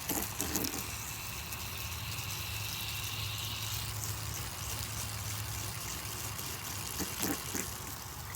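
Garden hose spraying a steady stream of water onto an air conditioner's condenser coil, rinsing off coil cleaner, on weak household water pressure, over a steady low hum.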